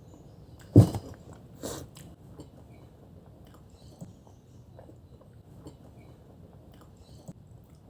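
Close-miked eating of spicy fried chicken: a loud bite about a second in, a smaller one just after, then quiet chewing with small scattered clicks.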